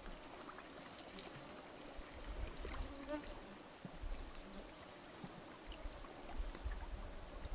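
Quiet lakeshore ambience: faint lapping water with light wind gusting on the microphone in low rumbles, and a few small ticks.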